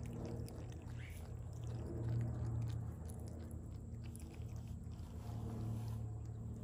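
A steady low mechanical hum, with faint scattered clicks and rustles from a brushtail possum pawing at a cardboard box.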